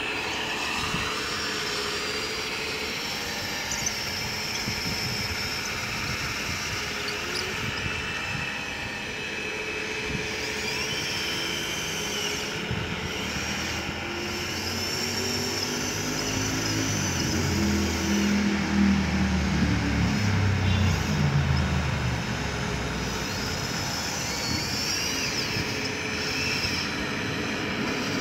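Electric motors and hydraulic pump of RC construction models working, whining up and down in short spells. About halfway through, a low rumble swells, peaks and fades away over several seconds.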